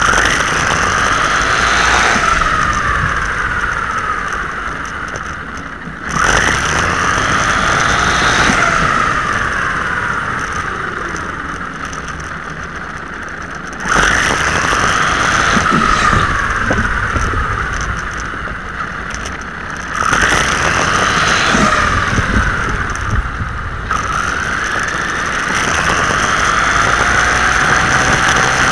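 WLtoys 12628 6x6 RC truck's electric motor and gear train whining as it drives on asphalt, heard from a camera mounted on the truck. It comes in five throttle bursts. Each one starts suddenly with a whine that climbs in pitch and then slides slowly back down.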